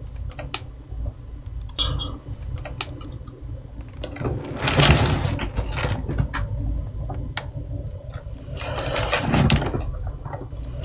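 Handling noise: scattered light clicks and knocks, with a short rustle about four seconds in and another near the end.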